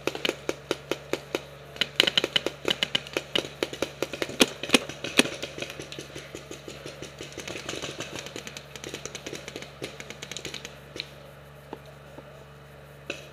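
Paintball markers firing in rapid strings of sharp pops, several shots a second and loudest in the first half, thinning to fainter, scattered pops near the end.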